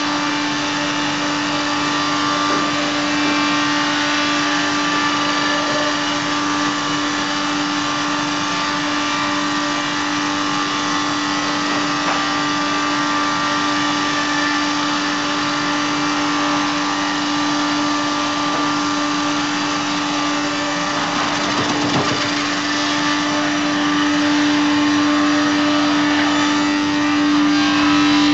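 FBST-220 milling and sawing machine running under load as a timber is fed through and cut, a steady loud machine drone with a strong constant hum. It grows a little louder near the end.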